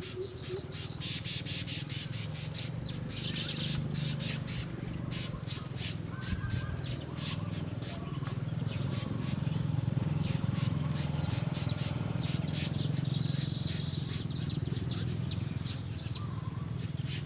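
Small birds chirping in quick runs of short, high notes, busiest in two spells, over a steady low hum.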